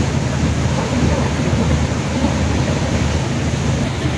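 Ocean surf running steadily and loudly, an even rushing noise with a heavy low rumble.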